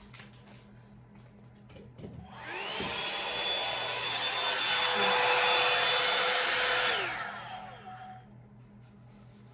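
Revlon One-Step Hair Dryer and Volumizer hot air brush switched on: its motor winds up to speed with a rising whine, then runs loud with a rush of air and a steady high whine. About seven seconds in it is switched off and the whine falls away as it spins down.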